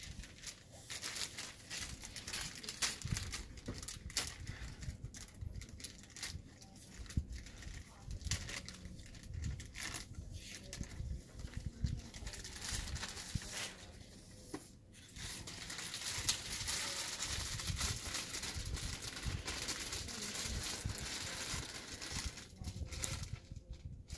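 Plastic wrapping of a catheter kit crinkling and tearing as it is opened by hand, with irregular crackles and rustles that thicken into continuous crinkling for several seconds in the second half.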